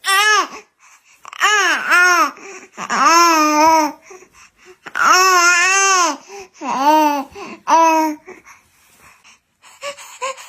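A baby's voice: about half a dozen drawn-out, high wails that rise and fall in pitch, with short gaps between them, like an infant fussing.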